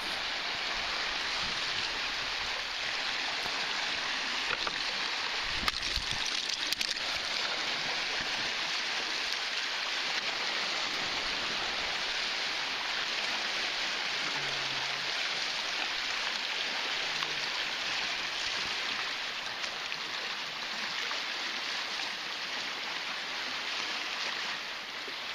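Small lake waves washing and splashing against shoreline rocks as a steady rushing wash, with a couple of brief knocks about six seconds in.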